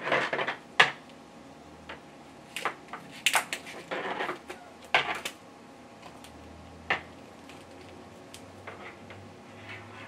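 Small metal audio plugs and adapters handled on a desk: a run of sharp clicks and clinks as they are fitted, pulled apart and set down, busiest in the first half, with one last click about seven seconds in.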